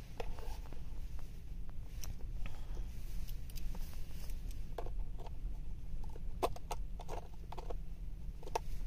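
Irregular small clicks, taps and rustles of a scan-tool cable's plug being handled and fitted into the plastic scanner's connector port, over a low steady hum.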